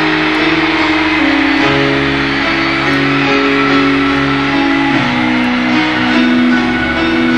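Live rock band playing a slow instrumental introduction, held chords changing every second or two, led by piano with sustained keyboard chords.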